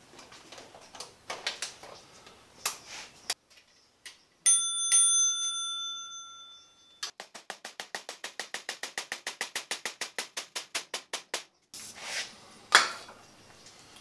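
Bicycle workshop sounds: parts being handled with light clicks, then a metallic bell-like ring struck twice that dies away over about two seconds. Next comes a fast, even ticking, about eight a second, for several seconds, and one sharp knock near the end.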